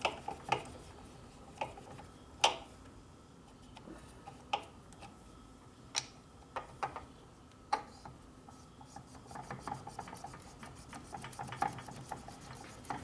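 Light metal clicks and taps of motorcycle engine parts being handled: a few sharp ones spread seconds apart, then a quicker run of small ticks and rubbing in the last few seconds.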